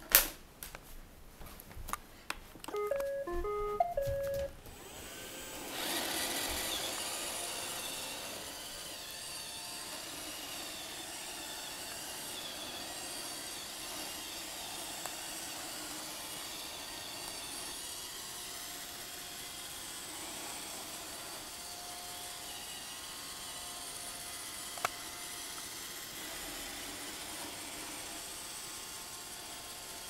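A knock as an iRobot Roomba robotic vacuum is set down on a rug. About three seconds in it plays a short tune of electronic beeps, then its vacuum motor and brushes start and run steadily in spot-cleaning mode.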